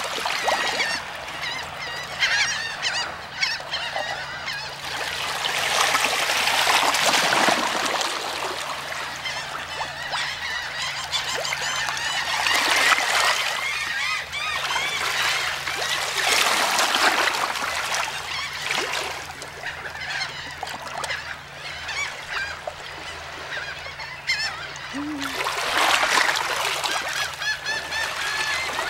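A large flock of birds calling continuously over one another, many honking and chattering calls overlapping, swelling louder several times.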